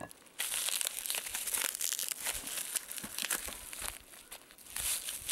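Plastic bubble wrap crinkling and rustling as it is pulled off a wrapped ferro rod by hand. The rustling starts about half a second in, eases off around four seconds in, and picks up again near the end.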